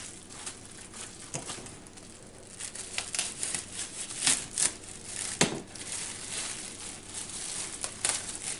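Lettuce leaves being pulled and torn off a head of lettuce by hand, crisp crackling and tearing in irregular bursts, the loudest about five and a half seconds in.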